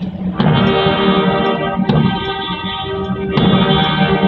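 Marching brass band playing a slow funeral march: sustained brass chords over a drum beat about every second and a half.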